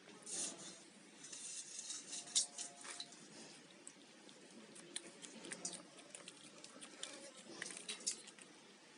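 A cat chewing fish, with wet smacks and small crunching clicks in irregular clusters.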